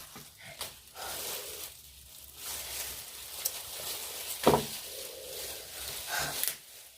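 Close-miked handling of a seafood-boil crab cluster: crackly, wet rustling and small clicks of shell, with one sharp knock about four and a half seconds in.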